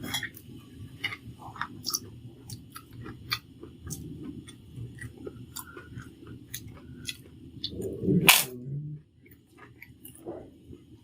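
Close-up chewing and wet mouth clicks of a person eating a meal of boiled rice with ghee and crispy fritters. There is one much louder burst about eight seconds in.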